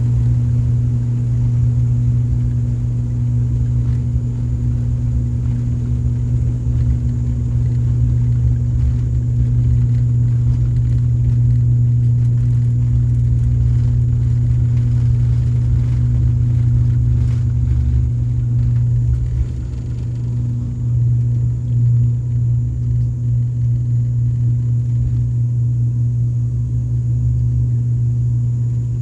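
ATR 72-600 turboprop engines and propellers at takeoff power: a steady low propeller drone with a fainter higher tone above it over a low rumble. The sound dips briefly about twenty seconds in, then wavers slightly.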